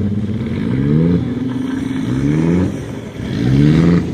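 Demolition derby car engines revving hard three times, the pitch climbing with each burst of throttle.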